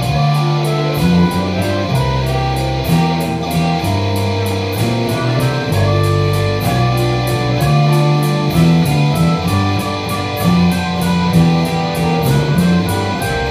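Live blues band playing an instrumental passage of a slow blues: electric guitars over walking bass and drums, with a steady cymbal beat about three strokes a second.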